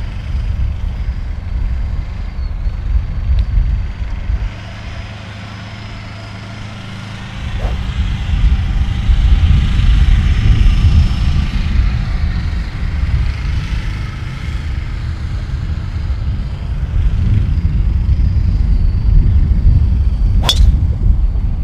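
Wind buffeting the microphone as a fluctuating low rumble, and near the end the single sharp crack of a golf driver striking the ball off the tee.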